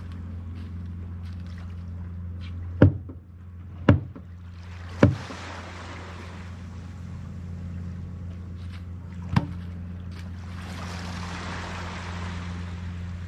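A motor hums steadily at a low pitch, with four sharp knocks, three close together early and one later, over two longer swells of rushing noise.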